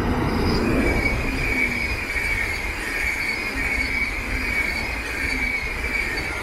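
SBB passenger train, single-deck coaches pushed by a red Re 460 electric locomotive, passing close by. Its wheels on the rails make a steady rumble, with a high, steady wheel squeal over it.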